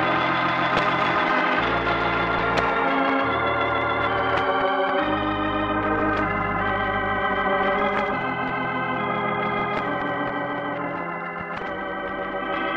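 Organ music at the close of a radio broadcast: full sustained chords that change every second or two over held bass notes, a little softer near the end.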